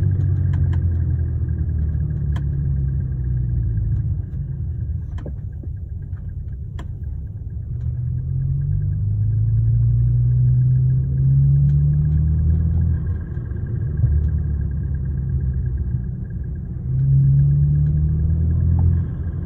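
BMW 335xi's turbocharged straight-six and drivetrain running under way, rising in pitch several times as the car accelerates, with a thin steady high whine over it and a few sharp ticks: the unexplained noise the owner hears from the front of the car.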